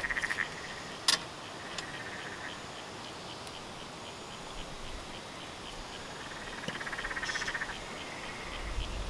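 Frogs calling at night by the water: a trilled call comes and goes several times over a rapid, regular ticking chorus. A single sharp click sounds about a second in.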